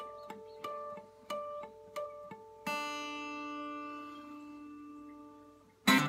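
Seagull spruce-top 12-string acoustic guitar played solo: a run of single picked notes, then a chord struck about two and a half seconds in and left to ring and fade away, and a loud strummed chord right at the end.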